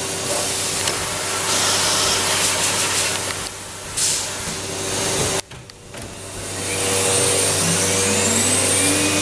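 Biesse Rover 27 CNC machining center running: a steady machine hum with a rushing air noise. About five and a half seconds in the sound drops away abruptly. It then builds back up, with a rising whine near the end.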